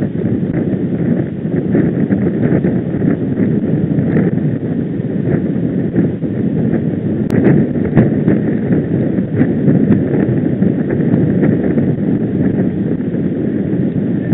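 Steady wind rushing over the microphone of a camera riding at speed with a group of road cyclists, with scattered faint clicks and a single sharper click about seven seconds in.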